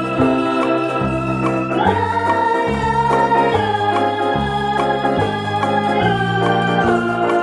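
Background instrumental music: held organ-like chords over a low bass line that steps to a new note about once a second.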